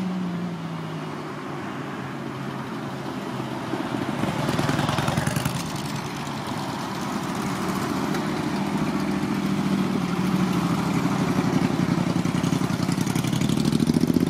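Several cruiser motorcycles riding slowly past, their engines rumbling at low revs with a steady pulse, rising in pitch near the end as one is revved.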